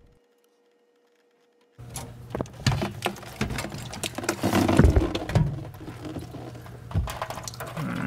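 Water spraying from a freshly cut half-inch copper supply pipe and splashing into a plastic bucket, with knocks and bumps as the bucket is held up against it. It starts suddenly about two seconds in. This is the water left in the line draining out even with the main shut off.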